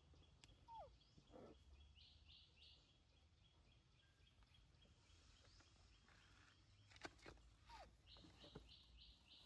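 Near silence: faint outdoor ambience with a soft high chirp repeating a few times a second, two brief falling calls, about a second in and near the end, and a few faint clicks in the last few seconds.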